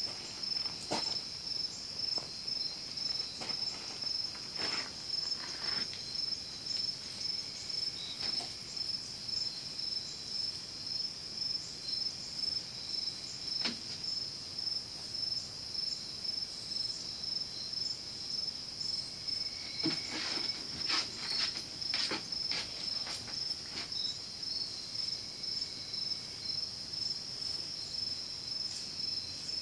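Crickets chirping in a steady, high, evenly pulsing chorus. A few short sharp clicks come through about two-thirds of the way in.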